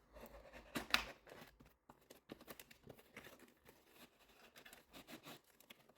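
Packaging being opened by hand: irregular rustling and crackling of the wrapping, loudest about a second in.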